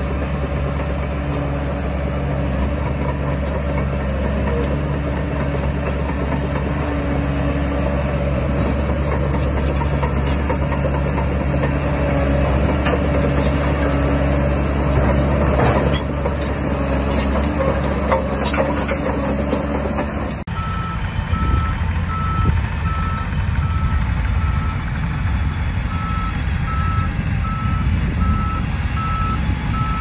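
Shantui DH17 crawler bulldozer's diesel engine running under load, with track clatter as it pushes soil. About two-thirds through, the sound changes abruptly to a lower engine rumble with a reversing alarm beeping in a steady series.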